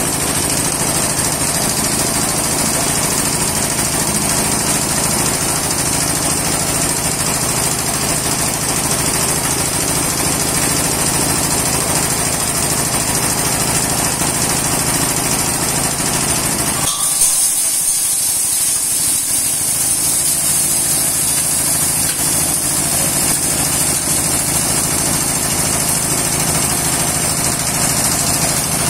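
Hammer mill driven by a small single-cylinder diesel engine, running steadily while crushing glass bottles into powder. About halfway through the low rumble eases and a harsher hiss comes up.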